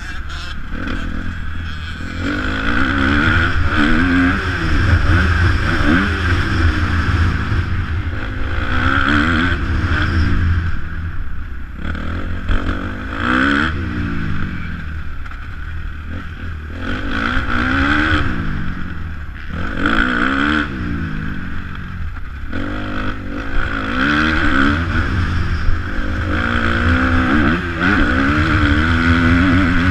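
Kawasaki 250 motocross bike's engine being ridden hard around a dirt track, the revs climbing and dropping again every few seconds through the gears and corners, over a steady low rumble.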